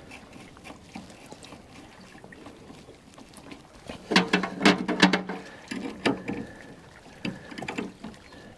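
A socket ratchet clicking in short runs, about four seconds in, as a nylock nut is done up on an outboard steering cable's drag link. Before it there is faint water lapping.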